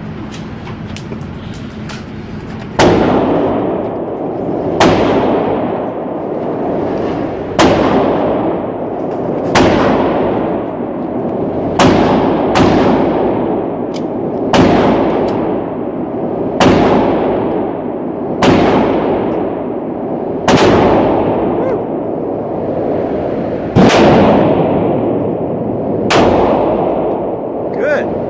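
Slow, deliberate single shots from a Smith & Wesson M&P Shield 9mm pistol: about eleven sharp cracks, roughly two seconds apart, starting about three seconds in. Each shot is followed by a short echoing tail.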